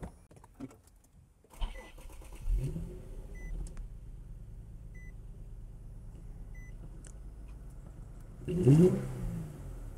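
Infiniti G37's V6 engine being started: it catches, flares up and settles to a steady idle after the cylinder 3 ignition coil was replaced, now without the earlier rough idle. A dashboard chime beeps four times at even spacing, and near the end the engine is revved once briefly and drops back to idle.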